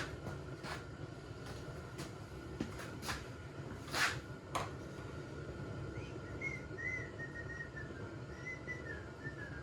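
Small sharp metallic clicks and taps as a wrist pin clip is fitted into a chainsaw piston, over a steady shop hum. From about six seconds in there is faint, wavering whistling.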